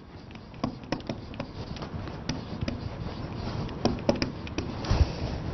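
Marker writing on a whiteboard: scattered small ticks of the tip against the board and scratchy strokes, busier in the second half.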